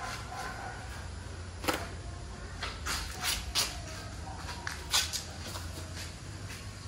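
Scattered soft knocks and taps of hands and bare feet on a steel roof truss as someone climbs across it, over a steady low hum.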